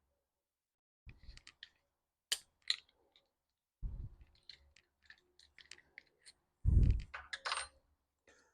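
Clicks and light knocks of tools and small parts being handled while a homemade lathe's drill-driven shaft assembly is taken apart, with a heavier thump and rattle about seven seconds in.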